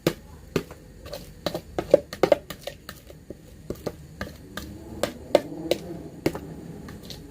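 Irregular clinks and knocks of a spoon or utensil against a pot and bowl as ingredients are tipped and scraped into the pot.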